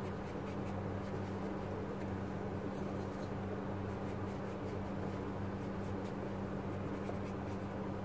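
Paintbrush loaded with blue watercolour stroked in slanting sweeps across watercolour paper, with a few faint ticks, over a steady low hum.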